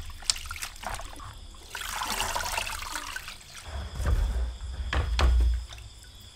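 Water splashing as leafy herbs are rubbed by hand in a plastic colander sitting in a basin of water; about two seconds in, a rush of water pours and drains as the colander is lifted out. Low thumps follow near the end as the plastic bowls are handled and set down.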